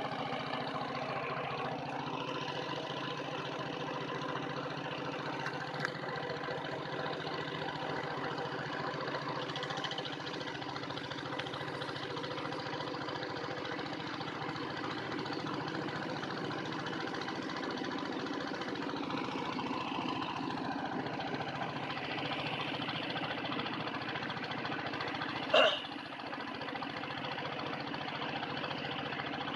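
A small engine running steadily. Near the end there is one brief, loud, sharp sound.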